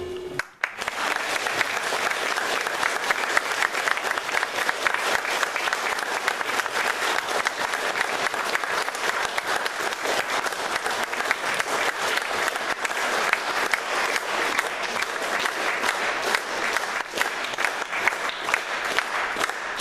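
An audience applauding. The clapping begins under a second in and goes on steadily throughout.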